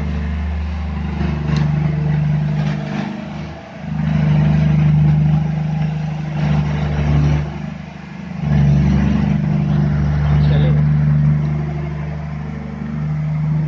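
Volvo SD160 soil compactor's diesel engine running under load with a steady low drone that dips briefly twice, about four and eight seconds in.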